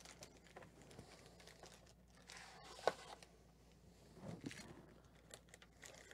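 Quiet rustling and crinkling of foil-wrapped 2012 Panini Cooperstown baseball card packs as they are pulled out of their cardboard box and stacked, with one sharper click about three seconds in.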